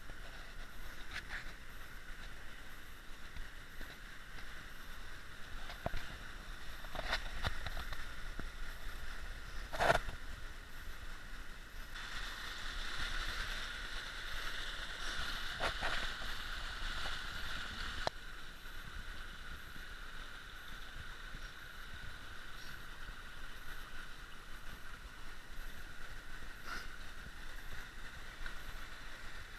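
Shallow creek water running over a shale bed, a steady burbling rush, with a few sharp knocks scattered through it, the loudest about ten seconds in.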